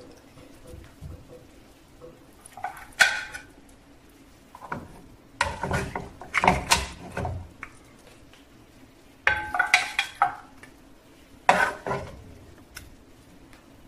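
Metal spoon and wooden spatula scraping and clinking against a frying pan as pieces of braised meat are lifted out, in several short bursts of clatter a few seconds apart.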